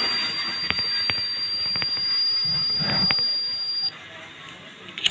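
Piezo buzzer of a homemade photodiode-and-transistor fire alarm sounding a steady high-pitched tone, meaning the circuit has triggered. It cuts off about four seconds in and starts again at the very end, with a few faint clicks along the way.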